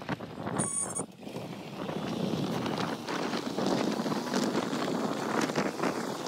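Wind buffeting the microphone on a moving motorbike, over the rush of the ride. A brief high-pitched chirp sounds about half a second in.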